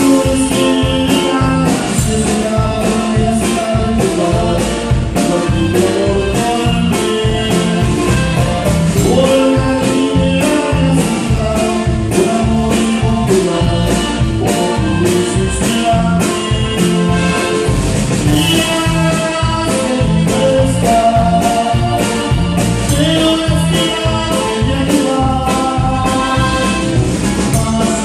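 Live band playing a song with a steady beat, with singing over it.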